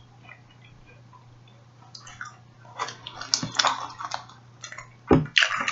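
Close-up chewing of a slightly melted Kit Kat wafer, with wet mouth sounds starting about two seconds in and a heavier thump about five seconds in.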